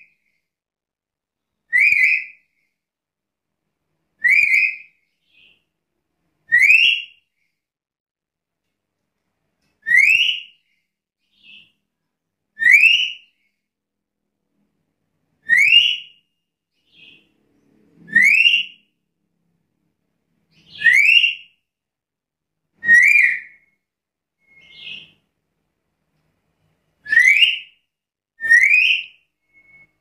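Black-capped lory calling: loud, rising whistled calls, each about half a second long, repeated every two to three seconds, with a few fainter short notes in between.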